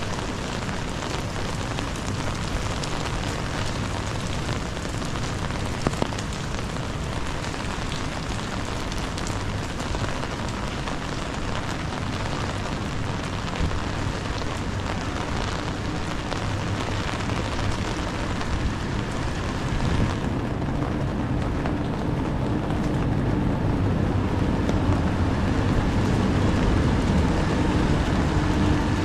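Steady rain falling on a wet city street, an even hiss. In the last third a low steady hum grows underneath it.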